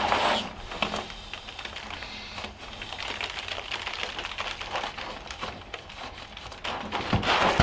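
Crinkling and crackling of an inflatable sleeping pad's nylon fabric as it is handled at the valve: a dense, irregular run of small rapid clicks.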